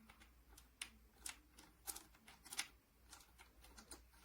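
Faint clicks and taps as a small metal quick release plate is handled against a camera lens collar foot, a few scattered sharp ticks.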